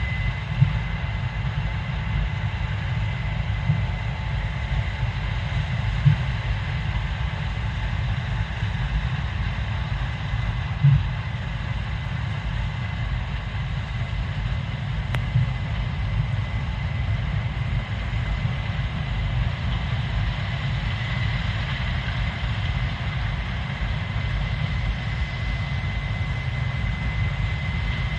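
Case IH 7230 Axial-Flow combine, with its 8.7-litre six-cylinder diesel, running steadily while harvesting soybeans: a continuous low rumble with a steady high whine over it. A few short knocks stand out, about a second, six and eleven seconds in.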